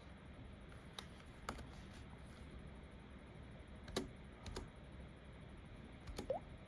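A few scattered, quiet keystrokes on a computer keyboard: six separate clicks, in pairs about one, four and six seconds in, over a faint steady room hum.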